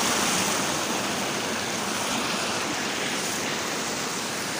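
Stream water rushing over rocks in small rapids, a steady rush.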